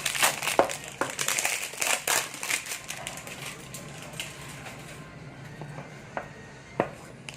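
Plastic packaging crinkling and rustling as it is handled during a phone unboxing, busy for the first few seconds, then quieter with a couple of sharp clicks near the end.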